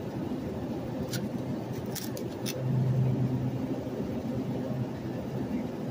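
Steady low hum of a supermarket's refrigerated display case and store air handling. A few light clicks fall between about one and two and a half seconds in, as plastic-wrapped chicken trays are handled.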